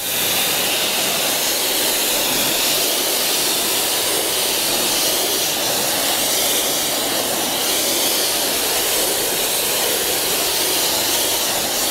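Kränzle Therm CA11/130 hot-water pressure washer lance spraying a jet of 60-degree water and pre-wash mix onto a car's paintwork: a loud, steady hiss that starts at once as the trigger is pulled.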